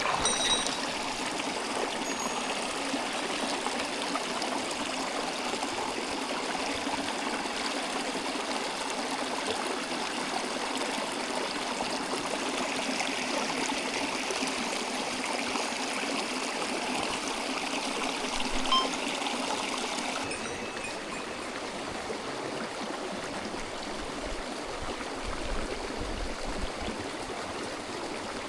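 Mountain stream flowing: a steady rush of water that eases a little in its higher part about two-thirds of the way in.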